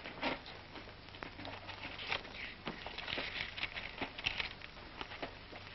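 Faint rustling and scattered soft clicks over a steady low hum and hiss, the surface noise of an old optical film soundtrack.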